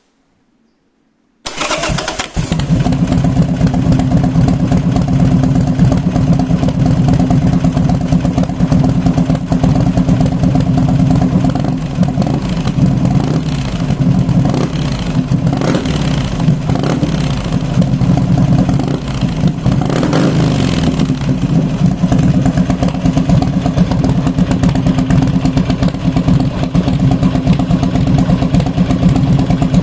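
Buell XB9S air-cooled V-twin breathing through an HP Corse full exhaust with a mesh inner silencer fitted, firing up about a second and a half in and settling into a loud, lumpy idle. The throttle is blipped several times about halfway through, the revs rising and falling back to idle.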